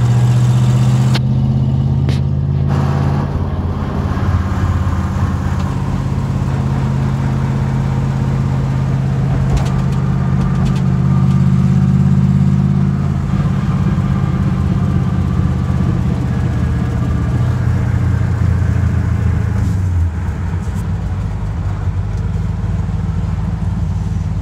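Ford 351 Windsor V8 of a 1965 Galaxie 500 running under way, heard from inside the cabin along with road noise. The engine note changes about a second in and again around thirteen seconds, and the sound drops in level about twenty seconds in.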